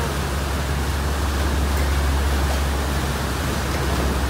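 Steady rush of ferry propeller wash churning against wooden dock pilings, over a constant low rumble from the ferry's engines and propellers as it works into the slip.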